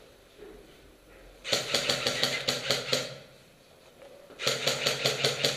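Airsoft gun firing two full-auto bursts, a fast even rattle of clicks; the first begins about a second and a half in and lasts about a second and a half, the second starts near the end.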